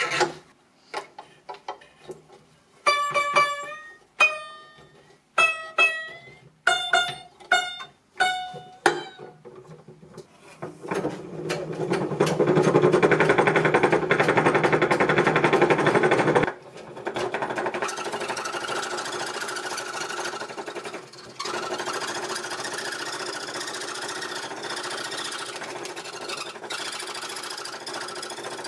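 A tensioned scroll-saw blade plucked about seven times, each pluck a short ringing note, at a few different pitches. Then the scroll saw, converted from a sewing machine, runs with a loud, steady, rapid mechanical rattle and cuts wood. The rattle and vibration come from parts that don't fit tightly; the maker names a loose bearing housing.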